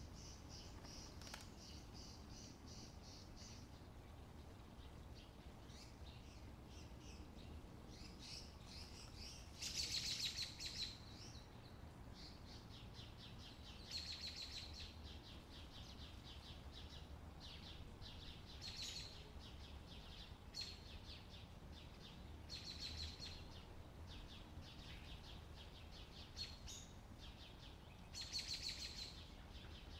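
Faint birdsong: short, high chirping trills every few seconds, the loudest about ten seconds in, over a low steady rumble.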